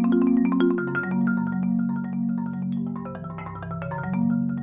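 Yamaha 5.0-octave marimba played solo with mallets: a quick, even stream of struck notes over low notes ringing underneath. The bass notes move down about a second in and shift again near the end.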